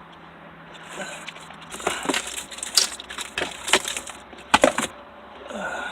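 Plastic dashboard trim panels being handled, a run of sharp clicks and crackles starting about two seconds in and stopping shortly before the end.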